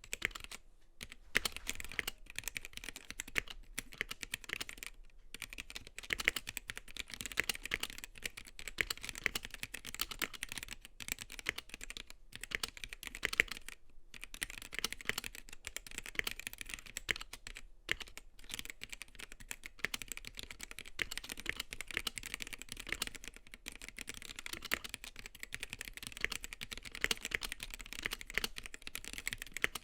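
Typing on a Gamakay K77 mechanical keyboard with Gateron Black linear switches and ABS doubleshot keycaps: a steady, dense stream of keystroke clacks, broken by a few short pauses.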